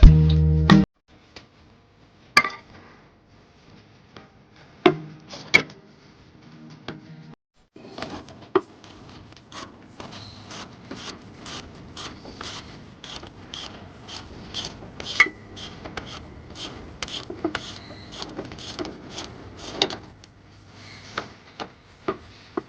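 Hand-tool work on car suspension parts: a few sharp metal clicks and knocks in the first seconds. From about eight seconds in, a run of quick rubbing strokes, several a second, lasts about twelve seconds.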